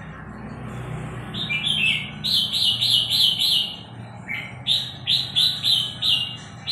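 Hand-raised young red-whiskered bulbul singing two runs of quick, repeated falling chirps, about three to five a second, as it practises its song.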